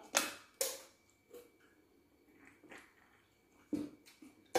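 A person eating pizza close to the microphone: chewing and lip smacks in short, separate bursts. Near the end comes a sip from a drink can.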